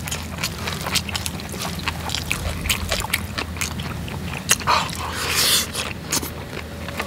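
Close-miked eating sounds: mouthfuls of bibimbap being chewed with many small wet mouth clicks, and a wooden spoon scraping rice on an iron cauldron lid, over a steady low hum. A brief breathy rush of noise about five seconds in.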